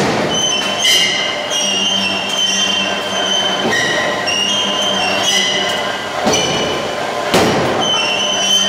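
Forging machine's ram striking red-hot steel blanks in the die: heavy metallic blows near the start, about a second in, and twice more late on. Under the blows runs a continuous high-pitched metallic squeal that shifts in pitch.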